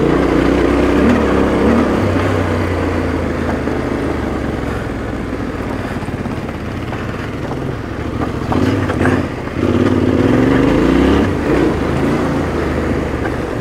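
Motorcycle engine running under load while riding off-road, its revs rising and falling with the throttle.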